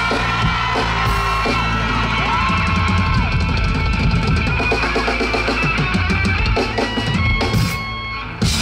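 Live band playing the instrumental close of a song: drum kit, bass and electric guitar, loud and full. The music thins out about a second before the end, then a sudden loud burst comes in right at the end.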